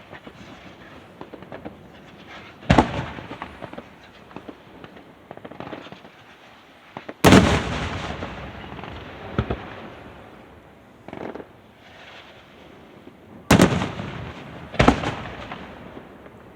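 Aerial fireworks shells bursting: a string of sharp booms, each dying away slowly, the loudest about seven seconds in and two close together near the end, with lighter pops and crackle between.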